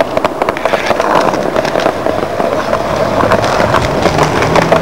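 Skateboard wheels rolling over concrete, a steady rough rumble, with a few sharp knocks of the board.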